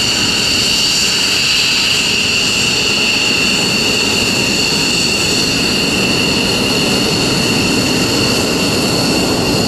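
Jet engines of aircraft taxiing on an apron, chiefly an F-15E Strike Eagle, running at taxi power. A steady, loud high-pitched whine with two pure tones sits over an even rush of engine noise.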